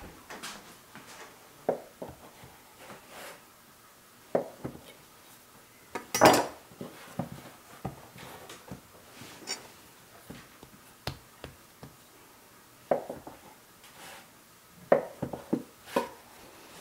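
A kitchen knife cutting a ball of fresh pasta dough into pieces on a wooden butcher-block counter: scattered sharp knocks and taps of the blade and handling on the wood, the loudest about six seconds in.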